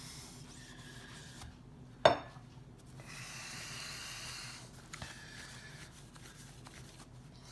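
Oiled paper towel wiping out the metal slide slot of a Nipper sharpening system, a soft rubbing hiss for about two seconds in the middle. A single sharp click about two seconds in.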